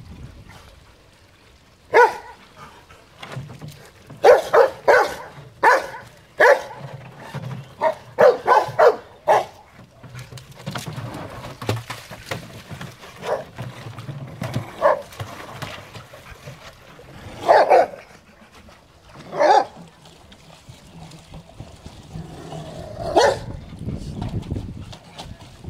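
Rottweilers barking in play: short sharp barks, several in quick succession in the first half, then a few single barks spaced seconds apart. In between, water splashes as the dogs shove a plastic barrel through the shallows.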